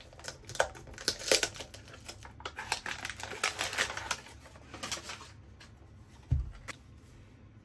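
White paper wrapping slit open and peeled off a small cardboard box, crackling and rustling in quick clicks. The box is then set down on the table with a soft thump about six seconds in.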